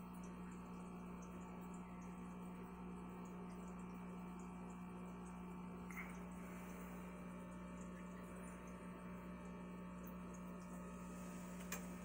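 Steady hum and water noise of a running aquarium, with a faint tap on the tank glass about halfway through and a sharper tap near the end.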